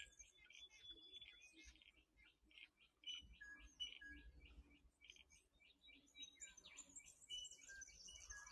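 Faint birdsong: many short, high chirps and tweets from small birds, scattered throughout.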